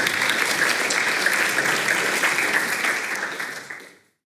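Audience applauding, a dense patter of many hands clapping, which fades away and stops near the end.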